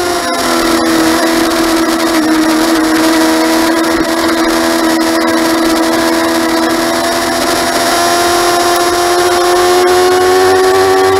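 Motorcycle engine running at high revs while riding, its whining note dropping just after the start, then holding steady and slowly rising near the end, over a steady rush of wind.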